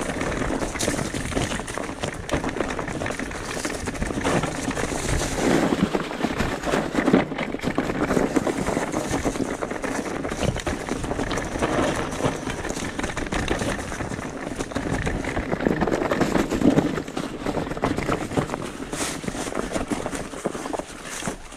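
Electric mountain bike ridden along a rough, stony trail: tyres rolling over stones and gravel and the bike rattling over the bumps, a steady noisy rush dotted with many small knocks.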